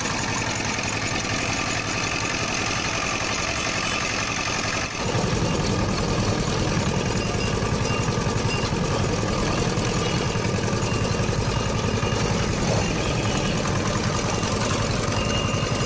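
Street sugarcane juice machine running steadily as its steel rollers crush cane. About five seconds in the sound turns deeper and heavier.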